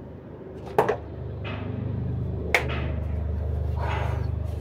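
Bottles knocking together as an upturned bottle is set and balanced on top of another: a sharp double click about a second in and a single sharper click past the middle, over a steady low hum. Soft breathy puffs come between them, the loudest near the end.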